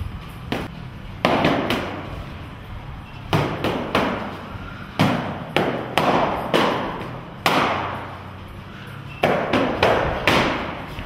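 Sharp smacks of boxing gloves hitting a coach's striking sticks, coming in quick clusters of two or three, each with a short echo of a large gym.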